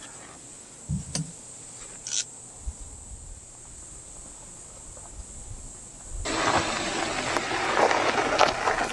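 A few sharp metal clicks and knocks, as from the titanium wood stove's door being shut and latched, over a quiet background. About six seconds in, a steady, louder rushing noise of outdoor background takes over.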